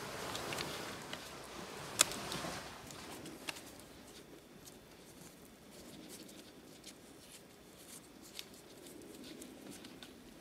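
Faint rustling and crinkling of plastic drip irrigation tape being handled and folded over soil, with a sharp click about two seconds in and a few lighter ticks after.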